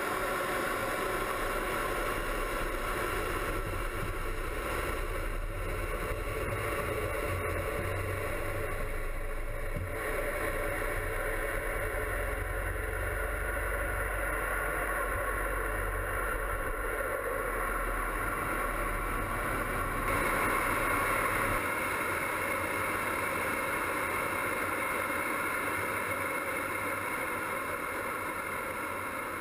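Fighter jet's engines running at high power, heard from inside the cockpit during the takeoff roll and climb-out: a steady mix of roar and hum. Its tone shifts abruptly about ten and again about twenty seconds in.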